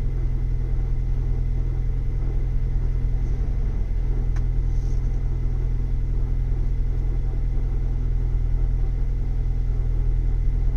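Ford Bronco 7-speed manual transmission giving a steady rotational scraping, grinding noise, 'like tumbling rocks', over the cold engine's idle with the clutch engaged in neutral. The owner takes it for faulty synchronizers, which Ford's TSB puts down to the 5th and 6th gear synchronizer rings when cold.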